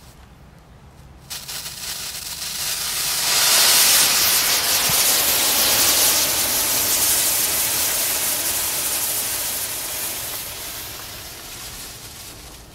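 A loose, unconfined lump of potassium nitrate and sugar rocket candy burning with a loud, rough hiss. It catches about a second in, swells to its loudest within a few seconds, then slowly dies away near the end.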